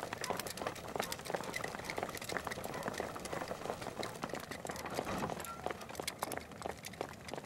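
Footsteps of a group of people running, a dense, irregular patter of many quick steps.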